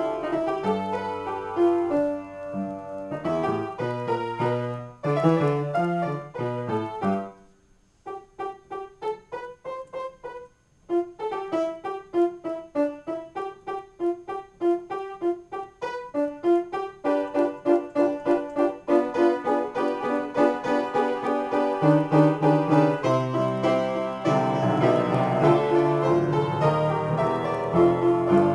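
Solo piano improvisation: full chords over a bass line, thinning about seven seconds in to lighter single notes in the treble with brief pauses, then quick even repeated notes that build back into full, louder chords with the bass returning.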